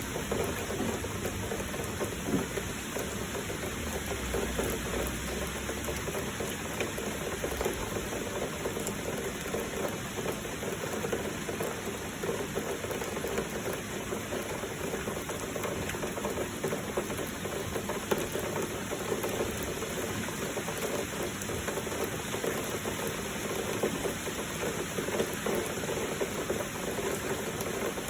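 Heavy rain falling steadily with flowing water: an even, unbroken hiss with scattered louder drops.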